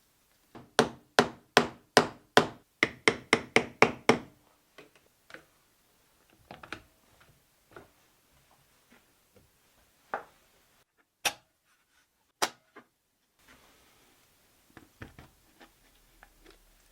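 Hammer strikes on wood: a run of about ten sharp taps at an even pace that quickens toward the end of the run, followed by scattered lighter knocks and three louder single taps.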